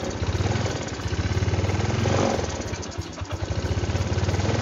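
Yamaha Mio scooter's small single-cylinder four-stroke engine running at idle, its level swelling and easing a few times, run to test a newly fitted voltage regulator-rectifier.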